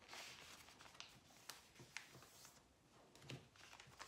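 Faint rustling and sliding of a sheet of paper being folded in half and creased by hand against a tabletop, with a few soft crinkles and taps.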